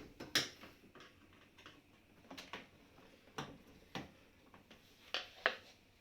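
Scattered sharp clicks and light knocks, about six in all, from hands and tools working on a dishwasher door.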